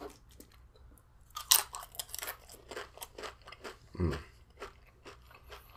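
Tortilla chips being crunched and chewed close to the microphone, a run of sharp crisp crunches, with a brief hum from the eater about four seconds in.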